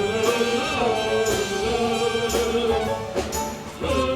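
A musical theatre song: voices hold sung notes over instrumental accompaniment, with percussion accents about once a second.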